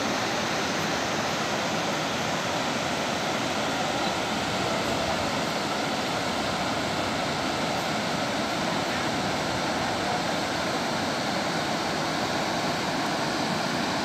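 River water rushing steadily over boulders and a stepped rock cascade, an even, unbroken rush of white water.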